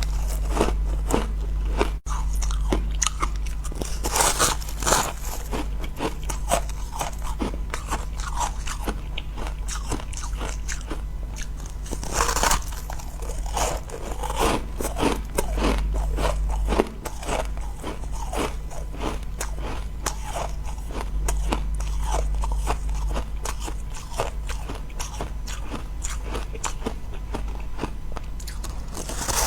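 Close-miked crunching and chewing of powdery white freezer-frost ice: a continuous, irregular crackle of bites and chews, with a few louder crunching bites, one of them about twelve seconds in.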